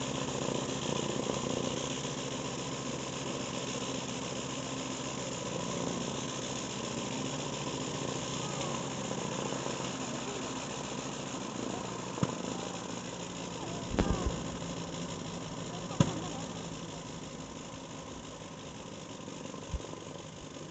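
Sopwith Camel biplane's engine running steadily during a ground run-up, easing slightly toward the end. A few sharp knocks close by in the second half.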